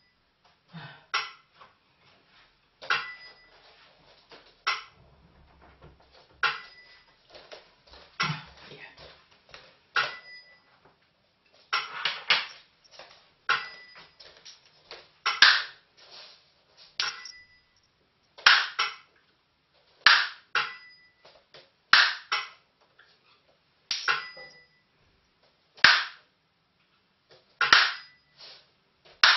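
Burmese si and wa, a small bell-cymbal and a bamboo clapper, beating out a steady dance rhythm: a bright ringing ding about every two seconds, with dry clapper clicks between.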